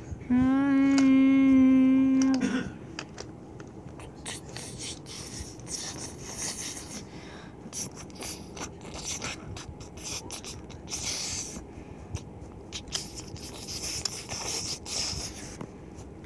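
A child's voice holding one long hummed note, imitating a train horn, for the first two seconds or so; then irregular clicking and rubbing of a wooden toy train being pushed by hand along wooden track.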